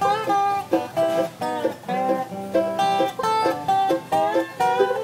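Bluegrass jam on acoustic instruments, with guitars, banjo and fiddle behind a lap-played resonator guitar (dobro) taking the lead, its notes sliding in pitch under the steel bar. No singing in this instrumental break.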